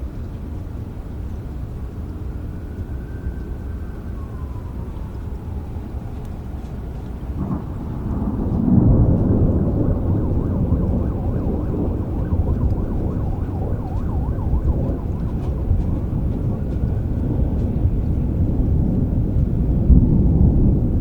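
Thunder rumbling over steady rain. A loud low rumble builds suddenly about eight seconds in and goes on, swelling again near the end.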